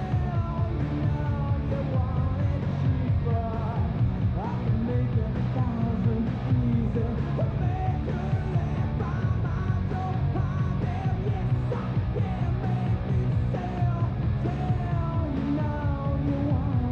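Rock-and-roll style music with a steady beat.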